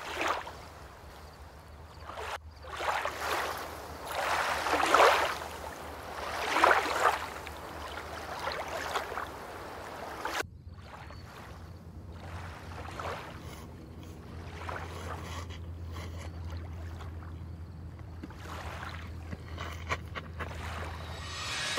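Outdoor wind noise on the microphone, swelling and fading in several gusts, cut off abruptly about ten seconds in and followed by quieter steady wind with a low hum.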